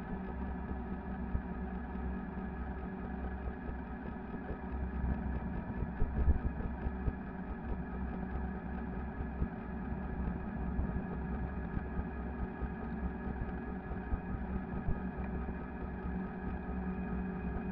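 250 W, 48 V electric fatbike riding along asphalt: a steady hum from its motor and tyres over a low rumble, with one bump about six seconds in.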